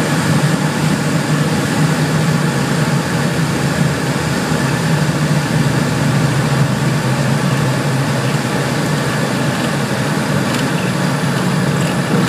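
Steady engine and rushing-air noise heard inside an airliner's cabin during landing and rollout on the runway, with a constant low hum underneath.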